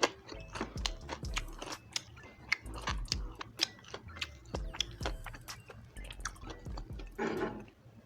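Close-up chewing and biting of crispy pata, deep-fried pork leg, with a run of irregular sharp crunches and wet mouth clicks.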